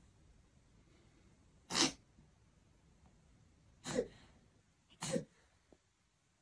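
Three short, sharp sneezes: one about two seconds in, then two more about a second apart.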